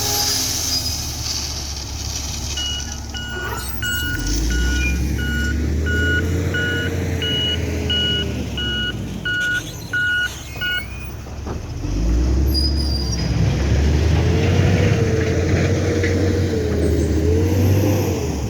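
XCMG ZL50GN wheel loader's diesel engine revving up and easing off twice as it works. A reversing alarm beeps about twice a second, from about three seconds in until about eleven seconds.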